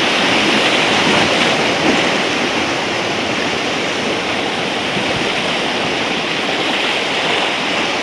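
Whitewater of the Nantahala River rushing steadily around a raft in the current.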